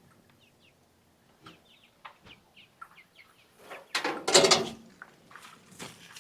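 Farmyard poultry calling: scattered short chirps, then one loud, harsh call about four seconds in, followed by softer calls.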